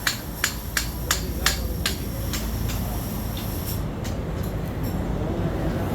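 Hand hammer striking metal in a blacksmith's shop: about eight quick ringing blows, two or three a second, stopping about three seconds in. A steady low rumble runs underneath.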